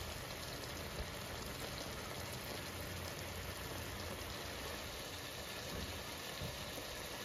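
Pork belly and eggplant in bagoong sauce sizzling and bubbling in a pan, a steady fine crackle.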